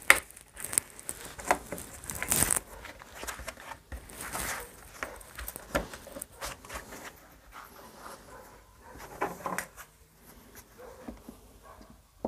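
Parts of a chainsaw recoil starter being handled and fitted together by hand: scattered clicks and knocks with rustling, busiest in the first few seconds and sparser after.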